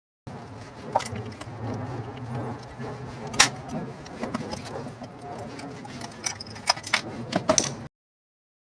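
Blind (pop) rivet tool at work: handling noise with a series of sharp metallic clicks and clinks, the loudest about three and a half seconds in and a quick cluster of clicks near the end.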